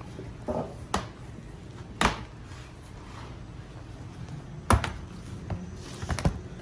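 A few scattered sharp clicks and light knocks of a laptop's plastic case and parts being handled during disassembly, over a low steady hum.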